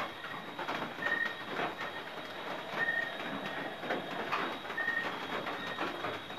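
Night outdoor sound: a steady high insect drone, with a short, high chirp repeating about every two seconds. Crackling rustles of movement through leaves and brush run underneath.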